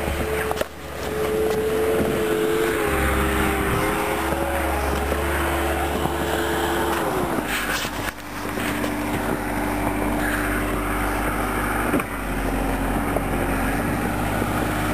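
Car engine held at raised revs while a car stuck in deep snow tries to pull free; the pitch steps down about seven seconds in and then holds steady.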